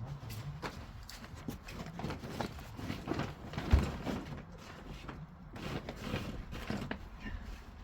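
Irregular knocks and scuffs of hands-on building work, with one heavier thump a little under four seconds in.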